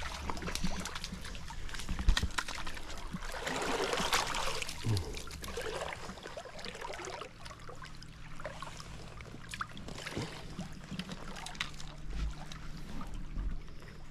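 Creek water trickling and running over stones, with scattered light clicks, a louder rushing swell about four seconds in, and a few dull low bumps.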